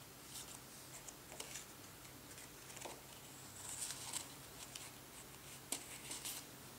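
Faint rustling and light taps of paper and cardstock being handled as a folded card flap is lifted open, with a short soft slide of card about four seconds in.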